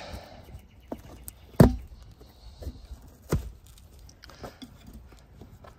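Scattered clicks and knocks of hands handling things on a car's interior floor, with a louder thump about one and a half seconds in and another a couple of seconds later.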